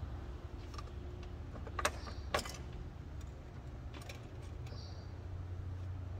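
A few light clicks and knocks of Ford C-Max lithium battery cells being shifted and pressed into place by hand, the two sharpest about two seconds in, over a steady low hum.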